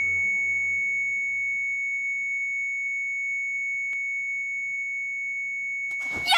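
Heart monitor's flatline alarm: one unbroken high-pitched tone, the sign that the patient's heart has stopped. Soft background music fades out under it in the first couple of seconds.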